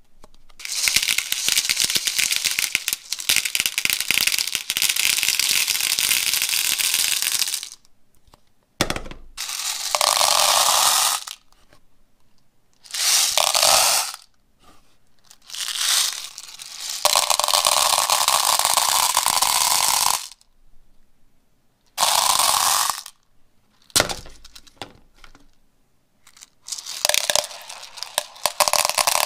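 Toys being handled and squeezed, with dense crackling and clicking for the first seven seconds or so, then a series of separate noisy bursts of a second or two each, with short quiet gaps between them.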